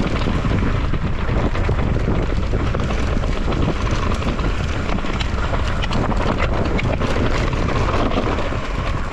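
Heavy wind buffeting a moving camera's microphone at speed, a steady rumbling roar, with scattered small rattles and clicks over rough ground.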